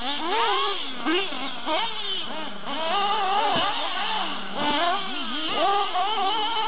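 Small nitro glow engine of an RC off-road buggy revving up and down as the car is driven around the track, its high buzzing pitch rising and falling several times a second, over a steady lower hum.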